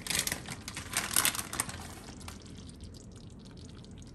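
Shredded mozzarella being added to a pan of cream sauce: rustling and scraping for about two seconds, then faint crackling.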